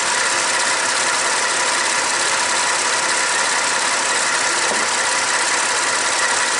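Ford 2.7-litre EcoBoost twin-turbo V6 idling steadily.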